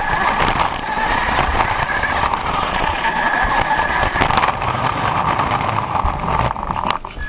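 Radio-controlled car's electric motor and gears running steadily, heard from a camera riding on the car, as a loud whine and hiss that drops away briefly near the end.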